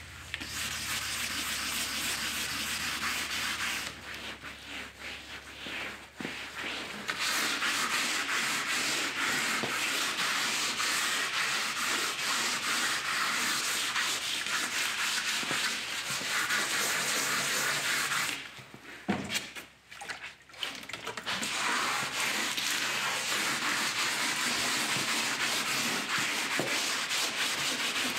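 Hand scuffing of wet painted sheet-metal fender with an abrasive pad: a steady rasping scrub that drops away briefly about four seconds in and again around nineteen to twenty-one seconds. The pad is wearing through the teal top coat to bring the black underneath through.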